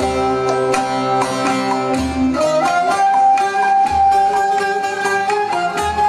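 Turkish folk music played on bağlamas, long-necked saz lutes, with rapid plucked notes over a long held melody line and a low bass note about every two seconds.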